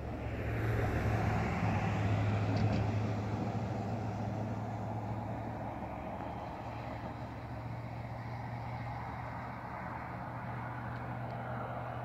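A motor running steadily, a low hum under a rushing noise, swelling about a second in and then slowly easing.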